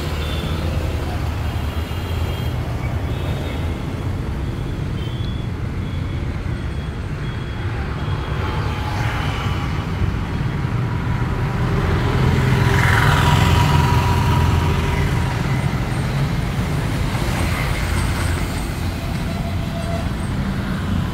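Mini tractor's small petrol engine running steadily at idle, a low even hum. About twelve seconds in a passing road vehicle briefly makes it louder.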